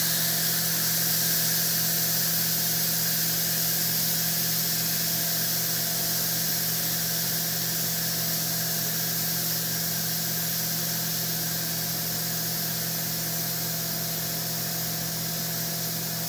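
Instant Pot electric pressure cooker's steam release valve hissing steadily during a quick release, venting the pressurised steam. The hiss slowly eases off as the pressure drops.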